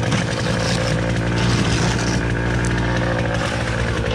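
Small gas engine running steadily at a constant speed, from a motorized concrete power buggy.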